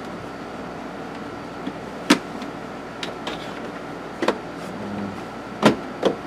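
About five sharp knocks and clicks of car interior parts being handled and fitted during dashboard reassembly, over a steady background hum with a faint steady high tone.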